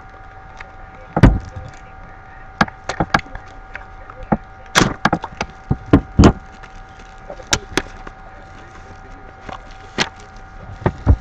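A trading-card box being handled and worked open: a dozen or so irregular sharp taps, clicks and crackles over a faint steady hum.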